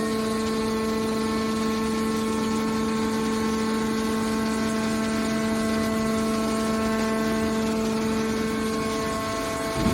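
Hydraulic scrap-metal baler's power unit running, a steady unchanging whine from the motor and hydraulic pump.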